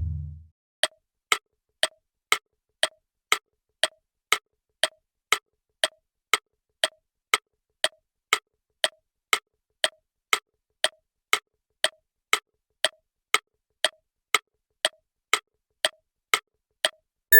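Timer ticking sound effect, like a clock: sharp, even ticks at a steady two a second that stop just before the end.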